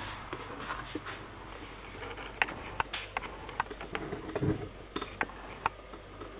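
Quiet room tone with scattered light clicks and one soft thump about four and a half seconds in, consistent with the camera being handled and reframed.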